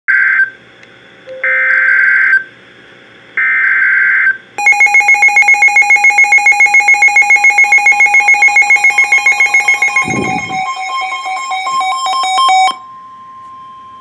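Emergency Alert System SAME header data bursts, a harsh buzzing, sent three times, then a weather alert radio's alarm beeping rapidly, about five beeps a second. About ten seconds in the steady NOAA Weather Radio warning alarm tone joins, with a short low thump, and it carries on after the beeping stops; together they signal a severe thunderstorm warning.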